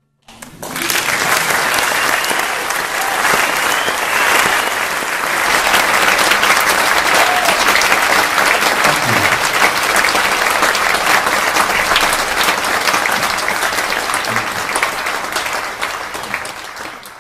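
Audience applauding at the close of a live jazz trio's piece, breaking out all at once just after the last piano chord has died away and holding steady before tailing off near the end.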